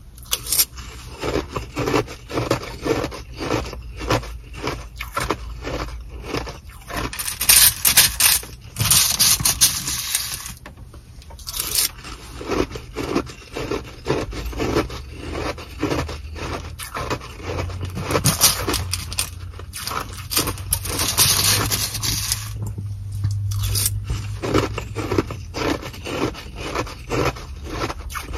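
Close crunching of nugget ("Sonic") ice being chewed, many quick crackly bites in a row, with the spoon scraping in the plastic ice bag and the bag crinkling, louder and hissier in a couple of stretches.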